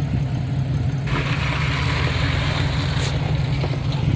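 An SUV engine idling with a steady low hum. About a second in, a steady hiss joins it and lasts until near the end.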